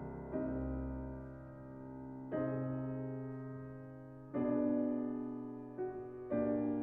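Background piano music: slow, soft chords struck about every two seconds, each left to ring and fade.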